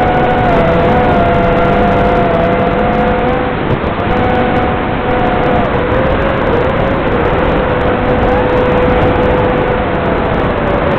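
Electric motors and propellers of an FPV drone whining at two steady pitches that shift slightly now and then with throttle, over a constant rush of wind noise.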